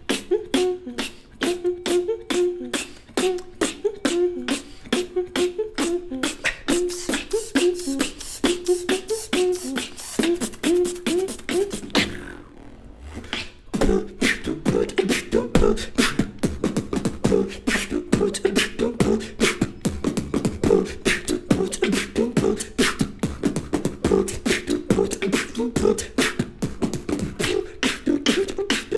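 Tag-team beatbox duo performing into one handheld mic: fast, rhythmic mouth percussion of kicks, snares and hi-hat clicks with a pitched vocal line running under the beat. About twelve seconds in the beat drops out briefly, then comes back denser.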